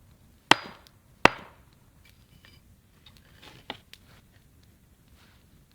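Two sharp blows of a tool striking wood, about three quarters of a second apart, as the wooden bench is being finished off; a fainter knock follows a couple of seconds later.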